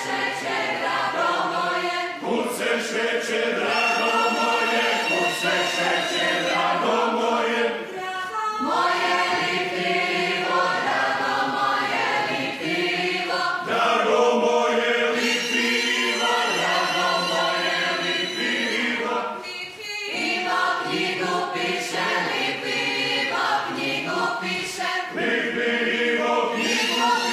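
A mixed group of men and women from a Slavonian folklore ensemble singing a folk song together, in phrases with short breaks between them.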